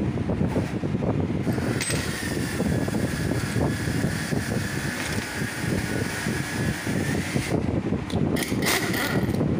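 Pneumatic impact wrench undoing a nut inside a motorcycle engine's crankcase: a steady air whine for several seconds, then several short bursts near the end, over a steady low rumble.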